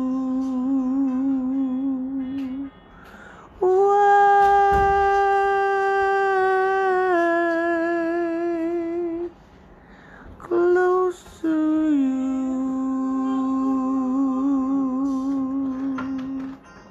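A voice humming a slow melody in long held notes with vibrato, each lasting several seconds, with short breaks for breath between them. The second long note steps down in pitch partway through.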